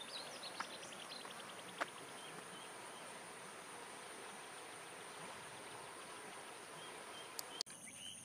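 Faint outdoor ambience of insects buzzing steadily, with a quick, evenly pulsed trill in the first second or so and a few faint clicks. The background drops abruptly near the end.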